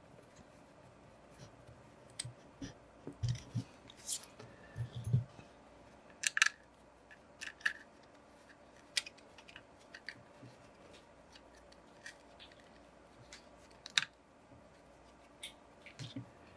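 Parts of a Planet Eclipse CS3 paintball marker being handled and fitted together by hand: irregular light clicks, taps and knocks of metal and plastic pieces, a few louder than the rest.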